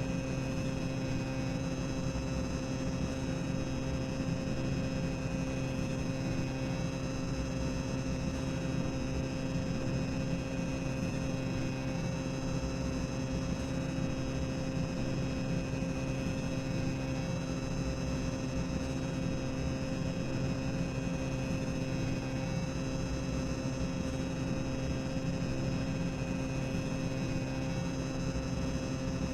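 Boiler room ambience sound effect: a steady machinery drone, a low rumble with a constant hum at several fixed pitches that does not change.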